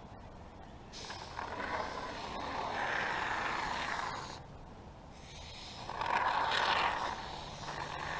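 Great Stuff Gaps & Cracks aerosol can of expanding polyurethane foam hissing as it is sprayed through its straw, in two long spurts with a short pause between.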